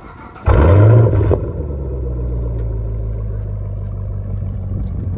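Chevrolet Camaro SS 6.2-litre V8 with a muffler delete starting up: a loud flare for about a second, then settling into a steady idle.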